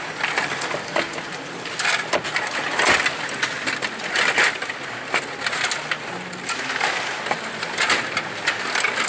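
Stiga table hockey game in play: metal rods sliding and twisting in the table, plastic players and the puck clattering against each other and the boards. A continuous run of rapid clicks and rattles, with louder bursts every second or two.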